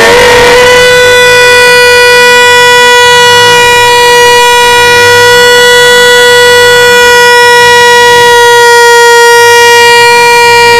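A person's voice holding a loud, nasal, high-pitched 'eeeeh' on one steady pitch: the 'most annoying sound in the world'. There is a small catch just after the start.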